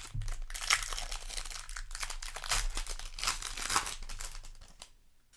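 Foil Magic: The Gathering play booster wrapper crinkling and tearing as it is handled and torn open, a dense crackly rustle that fades out near the end.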